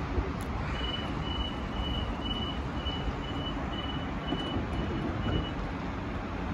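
Door-closing warning beeps of a Sydney Trains Waratah double-deck train as its doors slide shut: about ten short high beeps at one pitch, roughly two a second, starting about a second in and stopping past the middle, over a steady low rumble.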